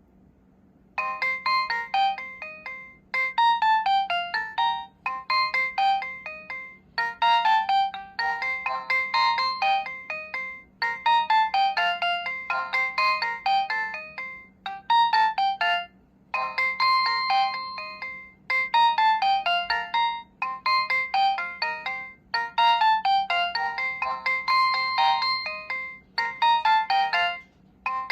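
Nokia 6016i mobile phone playing one of its built-in gallery ringtones: a bright electronic melody of quick notes in short phrases with brief gaps between them, starting about a second in.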